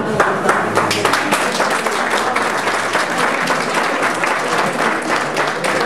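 A small crowd applauding, many hands clapping at once without a common rhythm.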